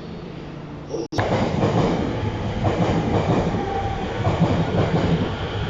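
Electric commuter train running along the station platform: loud rumble of wheels with clickety-clack over the rail joints, starting abruptly about a second in after quieter platform ambience.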